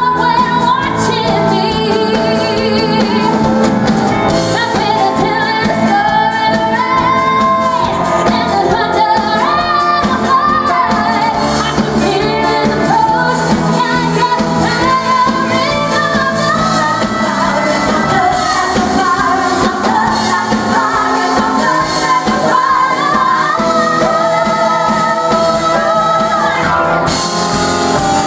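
Live pop music: a female vocal group singing a melody over a band accompaniment, steady and loud.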